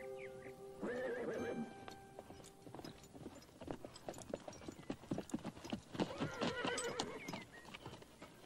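A galloping horse's hoofbeats on dirt, coming closer and growing louder, with horses whinnying about a second in and again around six seconds in.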